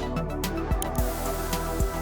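Electronic background music with a steady beat, a hissing wash coming in about halfway through.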